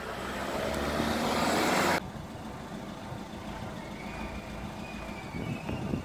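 A car driving close by, its tyre and engine noise swelling for about two seconds and then cut off abruptly, followed by quieter steady street noise.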